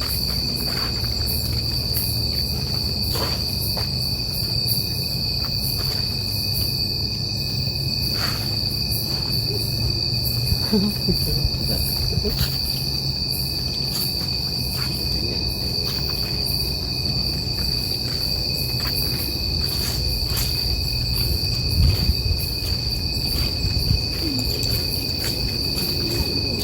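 Insects calling in a steady, high-pitched continuous chorus over a low rumble.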